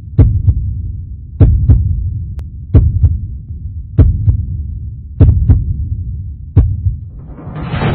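Heartbeat sound effect: slow double thumps, lub-dub, about every 1.3 seconds over a low hum. About seven seconds in, a rising swell builds into music.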